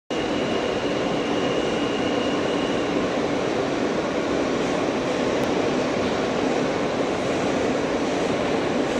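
Steady rumble and rush of an R160 New York City Subway car running along the track, heard from inside the car. A faint high steady tone sits over it for the first three seconds.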